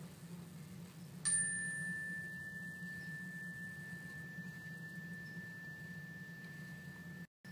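A mindfulness chime struck once about a second in, giving a single clear high tone that rings on and slowly fades. Listening for the ring to fade away is the cue for the children to open their eyes and end the quiet breathing practice.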